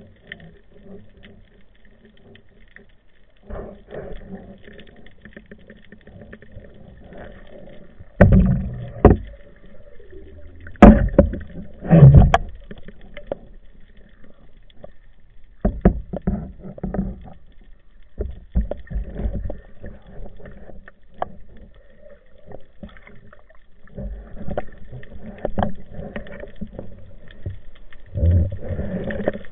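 Muffled underwater sound from a camera in a waterproof housing: uneven water sloshing and gurgling, with irregular low thuds and knocks as the housing moves. The thuds are loudest in a cluster about eight to twelve seconds in and again near the end.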